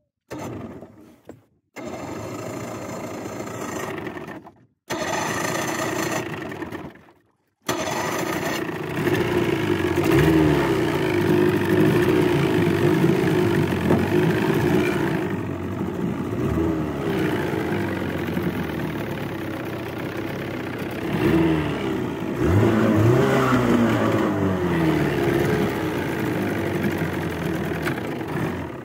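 Evinrude 25 hp outboard motor running and pushing a jon boat along. It comes in as a few short stretches split by gaps of silence, then runs without a break from about eight seconds in, its pitch rising and falling with the throttle.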